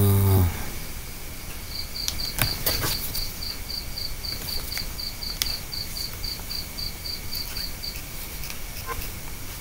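A cricket chirping in the background, a short high pulse about three times a second, which stops about eight seconds in. A man's drawn-out hum fades out in the first half second, and a couple of clicks sound about two and a half seconds in.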